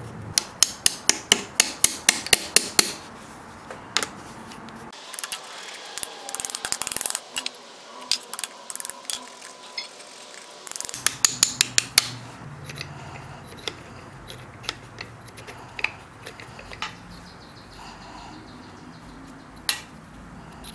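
Quick series of sharp metal-on-metal taps, about five a second, on the cast-iron body of a rusty Wilton Cadet bench vise, then a stretch of hissy scraping, a second shorter run of taps, and scattered light clicks of loose metal parts being handled.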